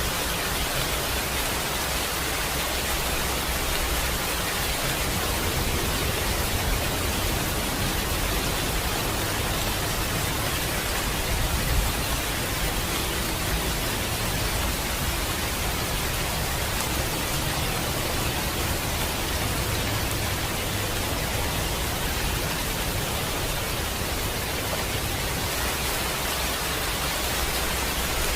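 Steady rainfall, an even hiss of rain with no thunder.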